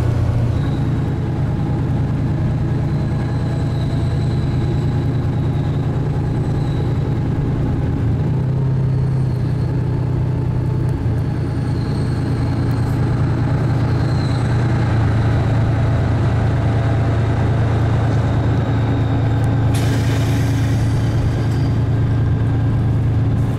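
DR1A-series diesel multiple unit heard from on board, pulling away from a station: its diesel engine gives a loud steady drone whose pitch shifts a few times as the train gathers speed, with a faint high whine over it. A rushing noise joins near the end.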